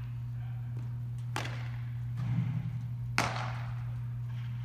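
Two sharp baseball impacts, about two seconds apart, each ringing out with a hall echo over a steady low hum.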